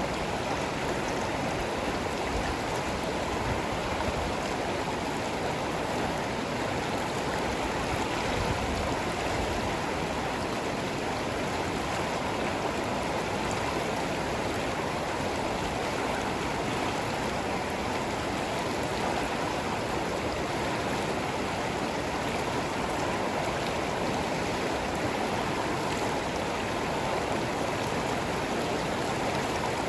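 Stream water running, a steady even rush with no changes.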